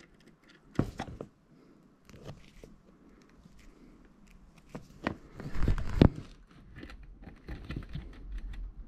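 Handling noise from stripped stranded wires being worked into the screw terminals of a 240 V to 12 V converter: light clicks, taps and rustling, with a sharp knock just under a second in and a cluster of louder knocks around five to six seconds in.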